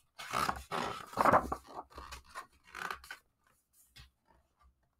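Paper rustling and sliding as the page of a large hardcover picture book is turned, in a few scraping strokes over the first three seconds.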